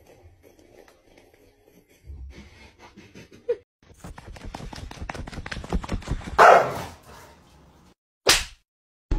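Dog scratching: a rapid run of scratching strokes, then a short loud dog vocalization. Near the end comes a single sharp slap.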